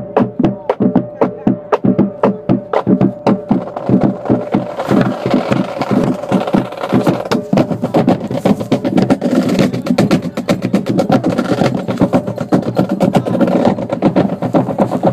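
Marching band playing: a fast, steady drum beat under sustained brass chords.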